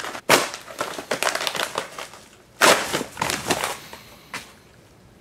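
Yellow paper mailer envelope being torn open by hand: two spells of ripping and crinkling paper, the first about two seconds long and the second about a second, then a single short tap near the end.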